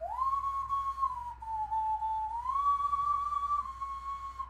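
Hand whistling: a slow tune blown into cupped hands, long held notes that slide between a lower and a higher pitch. It scoops up into the first note and breaks off just before the end.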